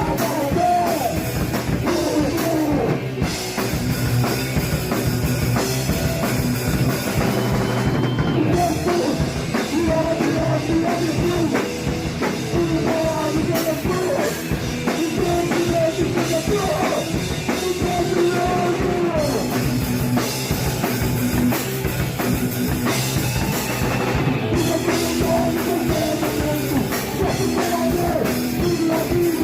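Crust punk band playing: distorted electric guitars, bass and fast, driving drums in a dense, loud, continuous wall of sound.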